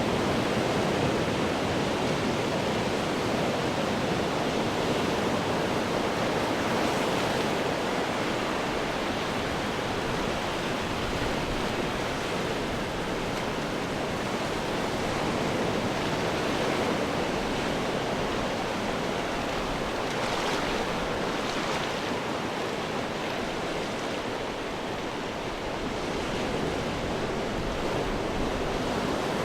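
Ocean waves breaking on rocks: a continuous wash of surf with gentle swells and a few brief brighter splashes.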